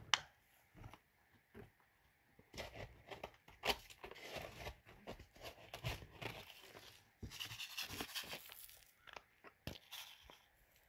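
Faint, irregular crunching and crackling of rock salt on an icy driveway. A sharp click comes at the very start, then scattered crackles that thicken from a couple of seconds in, with a scratchy hiss a few seconds before the end.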